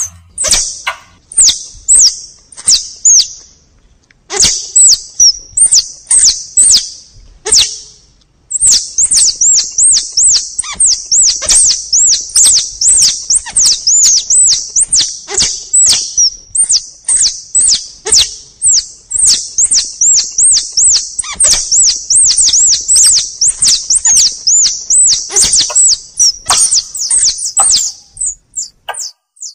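Forest squirrel calls played as a hunting lure: a long run of high, squeaky chirps, several a second, each with a sharp click. There are two short breaks early on, then an unbroken stretch.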